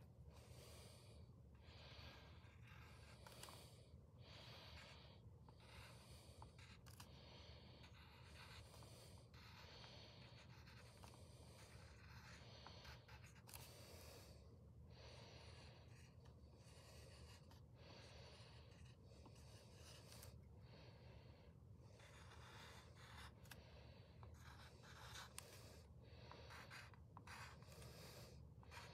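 Wooden pencil writing on paper, a faint scratching in many short strokes and clusters as numbers are written, over a low steady hum.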